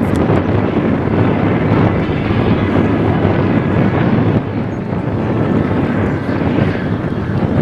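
Police motorcycles running during a drill riding display, with wind buffeting the microphone. The sound dips slightly about four and a half seconds in.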